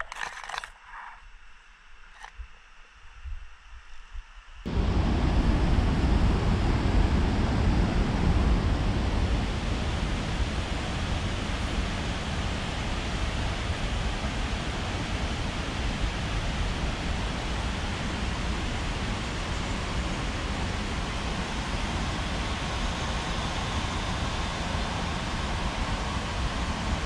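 Loud, steady rush of wind and rumble on the microphone while sliding down a zipline cable, starting suddenly about five seconds in. Before that, a few faint knocks.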